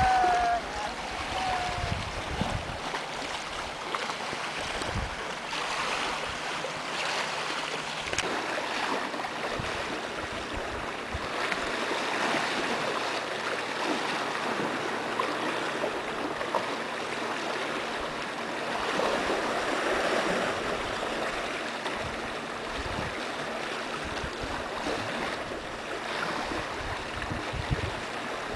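Sea water lapping and washing against rocks, with gusts of wind bumping the microphone in low, irregular thumps.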